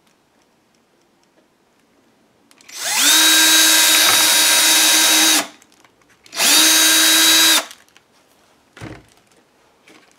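Electric drill run twice to bore another rivet hole: each run spins up quickly, its pitch rising for a moment, then holds a steady whine, first for about two and a half seconds, then, after a one-second pause, for just over a second. A soft knock follows near the end.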